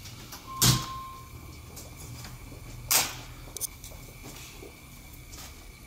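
Two sharp clunks about two seconds apart from the AR-15 rifle being handled, the first with a brief ring after it.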